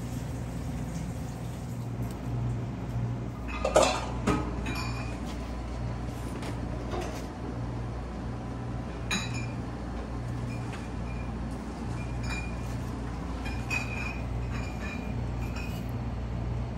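Kitchen clatter of pots, dishes and utensils, loudest about four seconds in, followed by scattered light clinks over a steady low hum.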